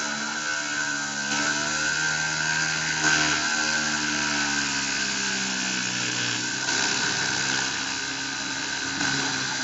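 Dremel rotary tool on a Cyclone PCB CNC machine running at a steady high whine while milling acrylic, with the machine's lower motor tones slowly rising and falling in pitch as the axes move.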